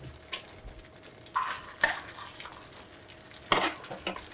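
Sweet-and-sour sauce sizzling in a pan as a metal ladle scoops it over chicken breasts, the ladle scraping and clinking against the pan several times, loudest a little before the end.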